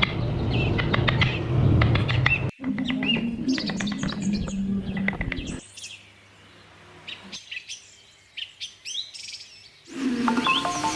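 Birds chirping over a low rumble. The rumble stops about halfway through, leaving sparse chirps on their own.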